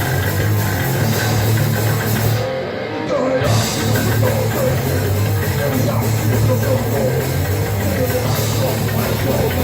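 Grind/noise metal playing: a dense, heavily distorted wall of sound with drums and a strong low end. About two and a half seconds in, the top end cuts out for about a second, then returns.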